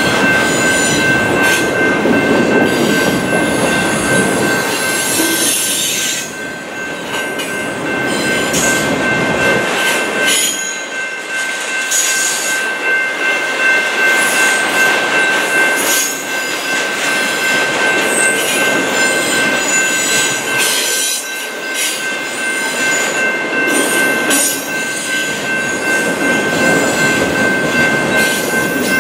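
Loaded autorack freight cars rolling past close by: wheels rumbling on the rails with frequent clanks and rattles, over a steady high-pitched wheel squeal.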